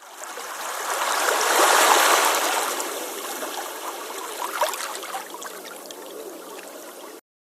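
A rushing noise like running water, swelling over the first two seconds, then slowly easing off before it cuts off suddenly near the end.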